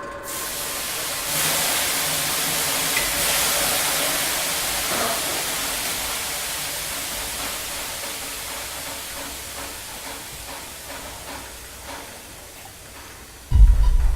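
Long hiss of escaping steam that swells twice over the first few seconds, then slowly dies away. Near the end there is a loud, deep boom.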